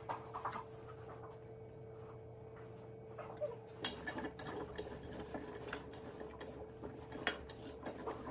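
Cut potatoes being tossed by hand in a pot, knocking and clicking against its sides in a run of light knocks that starts about four seconds in. A steady hum runs underneath.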